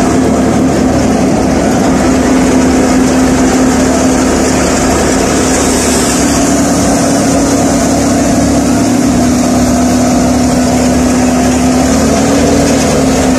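Tractor-powered wheat thresher running steadily: a loud, continuous machine din whose main engine note rises slightly about halfway through and again near the end.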